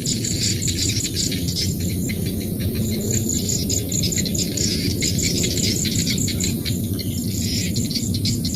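Rice-field ambience: a chorus of insects chirping in fast, high-pitched pulse trains, over a steady low background noise.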